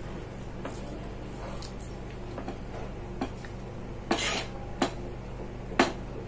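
Fingers mixing and pressing wet rice and kadhi on a plastic tray: soft squelching and light taps, a short noisy burst about four seconds in, and sharp clicks, the loudest near the end. A steady low hum runs underneath.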